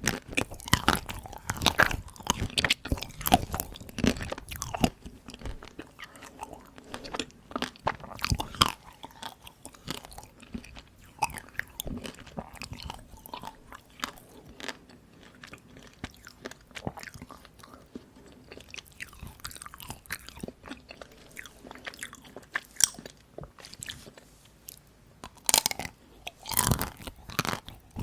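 Close-miked crunching and chewing of dark-chocolate Tico ice cream bites, the hard chocolate coating cracking between the teeth. The crunches come thick and fast for the first few seconds, thin out to softer chewing in the middle, and a loud run of bites comes near the end.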